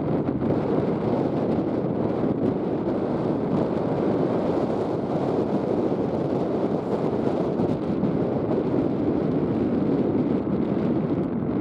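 Wind buffeting the microphone, a steady rough rushing.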